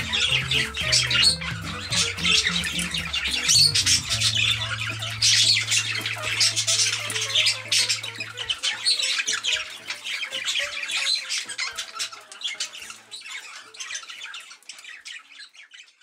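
Parakeets squawking and chattering in a rapid, continuous stream of calls over background music. The music's low notes settle on one held bass note that stops about halfway through, and the whole sound fades out gradually toward the end.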